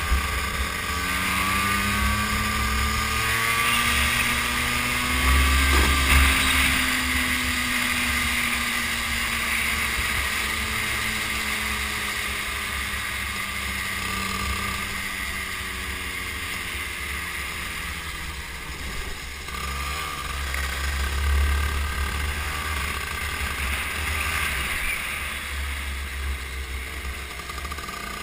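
Go-kart engine running under the camera, its pitch rising and falling as the kart speeds up and slows through the laps, with wind rumbling on the microphone.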